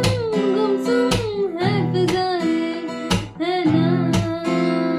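Acoustic guitar strummed in a steady rhythm of chords, with a voice holding a wavering, sliding melody line over it as the song continues without clear words.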